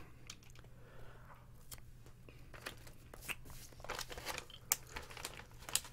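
Faint chewing of a bite of beef jerky: soft wet mouth clicks and small tearing sounds that come more often in the second half, over a low steady hum.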